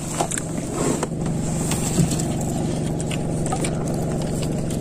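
Small boat engine running steadily with an even, low hum.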